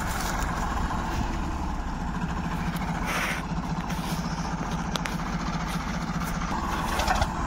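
Tractor diesel engines idling steadily, a Farmtrac 45 and a Ford 3600 standing together in a sugarcane field.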